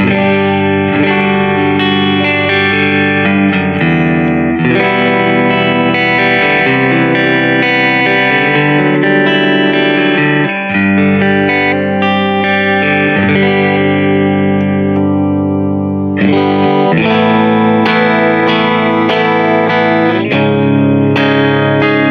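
Aiersi TL-12 Strat-style electric guitar with single-coil pickups, played amplified: a phrase of sustained, ringing notes and chords. About two-thirds of the way in the tone turns brighter as a new passage begins.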